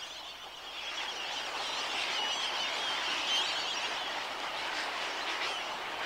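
A flock of birds calling together: a dense, steady chatter of many overlapping calls over a hiss, swelling a little about a second in.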